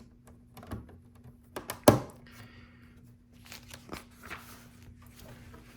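Plastic LEGO pieces being handled: a few light clicks and some rustling, with one sharp click about two seconds in.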